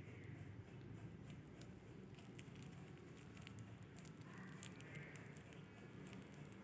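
Near silence: low room hum with faint, irregular small clicks scattered throughout.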